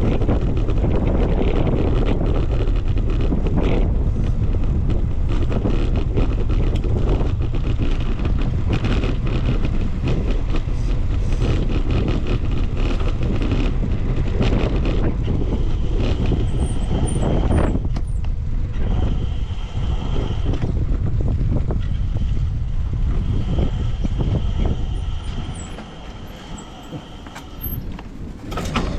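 Traffic noise with heavy wind rumble on the microphone, which drops away about 25 seconds in. A steady high-pitched tone comes and goes through the second half.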